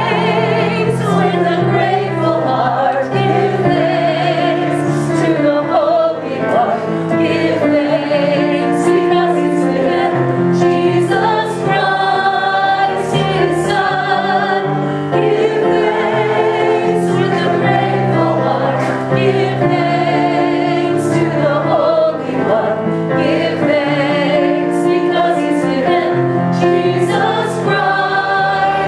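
A church congregation singing a hymn together, accompanied by a keyboard.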